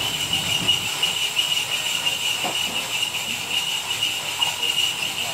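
A steady, high-pitched hissing buzz that starts suddenly and cuts off suddenly.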